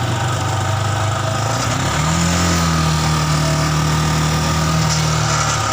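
Yamaha Scorpio Z single-cylinder four-stroke motorcycle engine (about 225 cc) running steadily in a homemade mini buggy. Its speed rises about two seconds in, holds, and drops back near the end.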